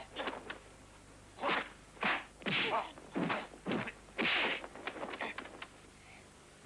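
Dubbed kung fu fight sound effects: a rapid series of swishing swings and slapping punch and kick hits, about ten in six seconds, with a few quieter hits near the end.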